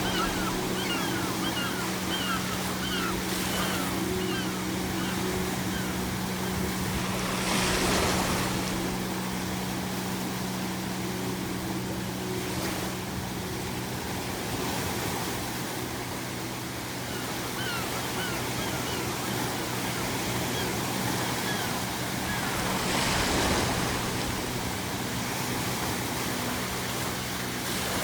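Ocean surf washing steadily, with waves breaking loudest twice, about 8 and 23 seconds in. Clusters of short, high seagull calls come near the start and again through the second half, over a low steady drone.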